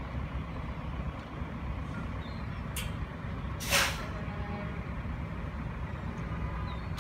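A semi truck's engine idling with a steady low rumble, and a hiss of compressed air from its air brakes: a brief one about three seconds in and a longer, louder one just before four seconds, as the brakes are checked.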